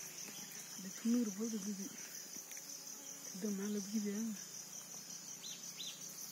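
Insects trilling: a steady, rapidly pulsing high-pitched chirr that runs on without a break.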